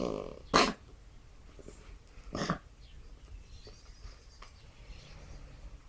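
A baby coughing: two short, harsh coughs about two seconds apart, the first much louder.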